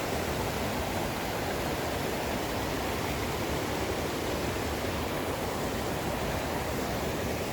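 Steady rushing of a mountain creek's cascading water, an even hiss with no breaks.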